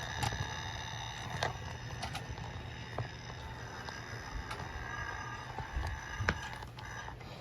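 Toy Hogwarts train running on its track: a steady motor whine over a low hum, with a few irregular clicks from the wheels and track.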